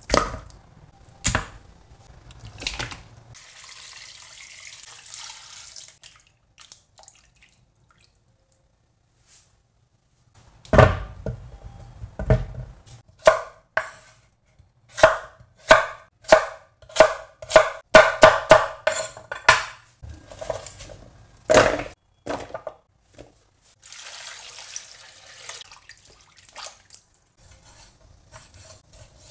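Kitchen knife chopping new potatoes on an end-grain wooden cutting board: a quick run of sharp knocks, two or three a second, through the middle of the stretch, with a few strikes before it. Two stretches of hiss, one before the chopping and one after it.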